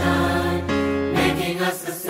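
Background music: a Christian hymn sung by a choir in long held notes. The sound thins briefly near the end.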